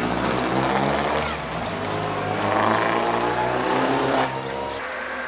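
Rally car engine revving hard as it drives past, pitch climbing in several sweeps as it accelerates through the gears, then dropping away about four and a half seconds in.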